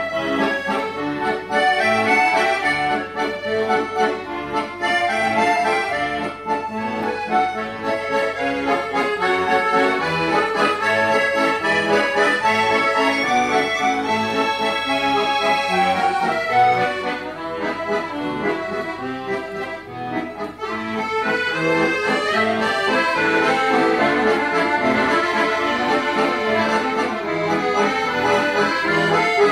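Accordion ensemble playing a piece together: many accordions holding sustained chords under a moving melody. The music drops quieter a little past the middle, then builds up loud again.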